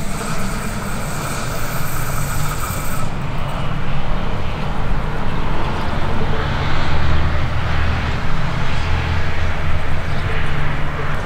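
Metre-gauge electric train running on the rails: a steady rumble with wheel-on-rail noise. The high hiss changes abruptly about three seconds in, and the low rumble grows louder in the second half.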